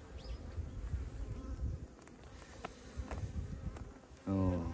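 Honeybees buzzing steadily over an opened hive full of bees while a comb frame is lifted out, with a few faint clicks from the frame being handled.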